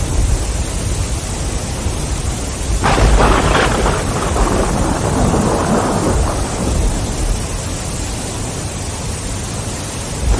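Thunderstorm: steady rain with a low rumble, and a sharp thunderclap about three seconds in that crackles and rolls away over the next few seconds.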